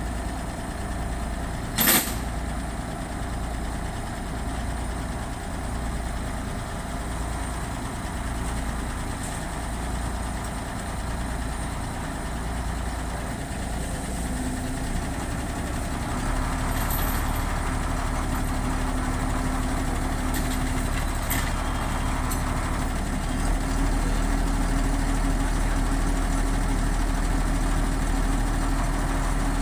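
Mini excavator's diesel engine idling steadily, with one sharp knock about two seconds in. About halfway through a steady hum joins in and the engine gets louder, and it steps up again near the end as the machine is worked.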